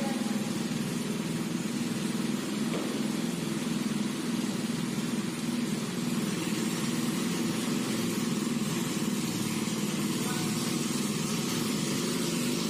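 Go-kart's Honda Activa 110cc single-cylinder four-stroke engine idling steadily.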